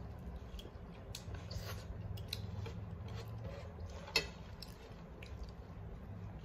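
Eating by hand from a stainless steel plate: fingers squishing and mixing rice with curry, with scattered small clicks and one sharper tap on the plate a little after four seconds in.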